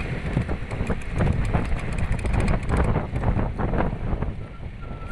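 Strong gusting wind buffeting the microphone, with a rapid scatter of crackles and knocks. It eases a little near the end.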